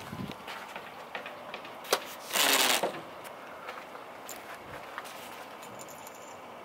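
Rustling and scattered clicks from the camera being handled and moved, with a sharp click and then a loud half-second hiss about two and a half seconds in.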